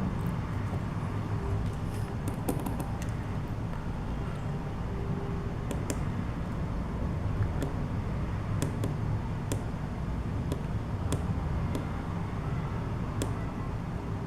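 Scattered faint clicks of the Emisar D4 flashlight's side button being pressed, over a steady low rumble.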